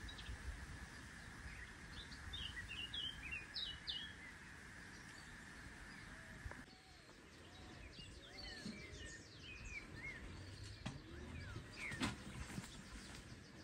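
Faint outdoor ambience with small birds chirping and whistling in short, scattered calls. One sharp knock near the end.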